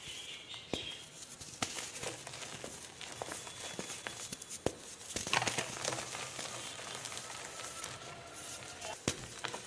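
Reformed gym chalk being crushed, a steady dry crunching and crackling broken by sharp snaps a few times as pieces break.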